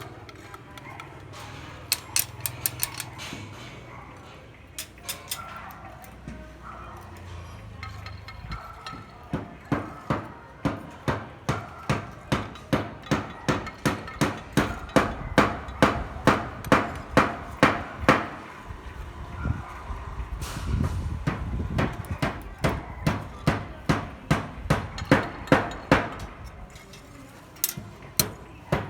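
Hammer blows on a building site where a steel reinforcement frame for beams is being built: a few scattered strikes, then long runs of steady hammering at about two blows a second, with a pause in the middle.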